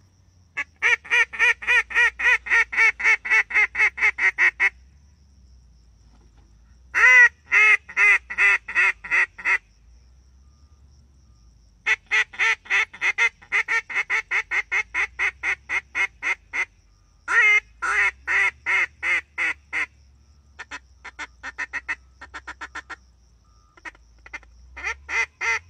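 Hand-blown Reyoka duck call sounding rapid runs of short duck quacks, about five a second, in six bursts with short pauses between them, the fifth fainter.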